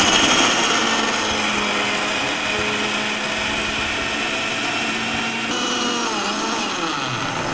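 Prestige electric mixer grinder running at full speed, grinding roasted coconut and spice masala with water into a fine paste in its steel jar. The motor's pitch dips and rises briefly near the end, and then it stops.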